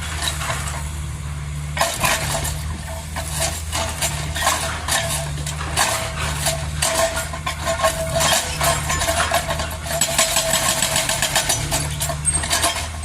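Kobelco SK200 excavator's diesel engine running steadily, with irregular metallic clanking and clinking starting about two seconds in.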